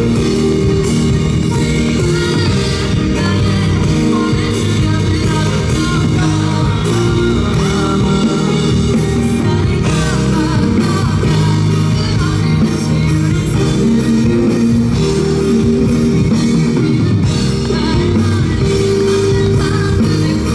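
Live band rock music: a pop-rock song played loud and continuously, with guitar, bass and a melodic lead line.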